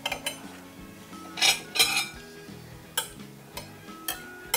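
A metal knife and cake server clinking and scraping against a plate as a cake is cut: several sharp clinks, with a longer scrape about one and a half to two seconds in, over quiet background music.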